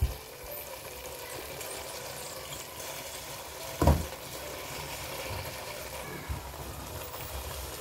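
Cooked basmati rice tipped from a bowl into a pan of vegetable masala: a low steady hiss from the pan, with one soft thump about four seconds in as a mass of rice drops in.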